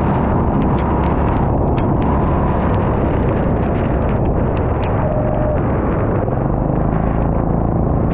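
Go-kart engine running hard under the driver's seat, heard from the onboard camera, with scattered faint ticks over it.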